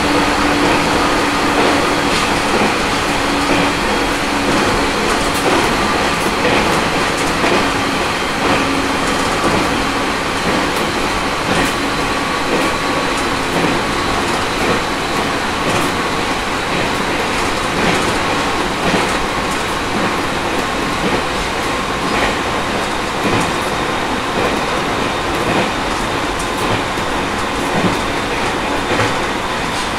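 Aoimori Railway 701 series electric train running at speed, heard from inside the car: a steady rumble of wheels on the rails with frequent short clicks and a faint hum.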